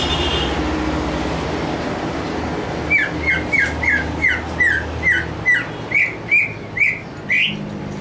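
Green leafbird (cucak hijau) calling: starting about three seconds in, a quick run of about a dozen short whistled notes, roughly three a second, each slurring downward at first, the last few turning upward.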